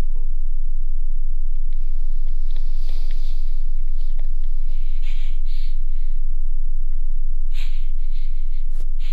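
A deep, steady low drone, with quiet shaky breaths and sniffles muffled by hands held over the mouth, coming every second or so.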